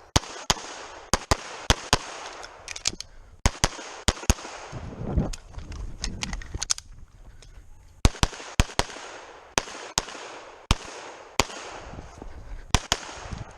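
Rapid handgun fire during a practical pistol stage: about twenty shots, many in quick pairs, with a pause of a few seconds in the middle before the shooting resumes.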